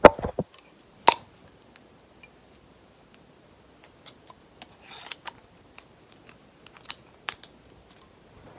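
Sharp metal clicks and clacks of a pink-handled butterfly knife being flipped open and shut by hand, loudest about a second in, then irregular clicks later on.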